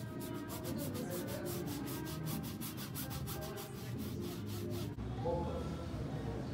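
A small paintbrush scrubbing back and forth on canvas: a rapid, even run of scratchy strokes, about seven a second, that stops abruptly about five seconds in.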